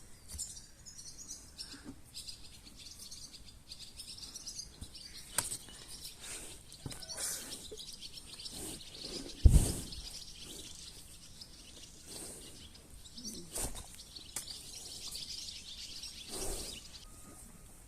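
Many small birds chirping and twittering continuously, with a single loud thump about halfway through and a few lighter knocks.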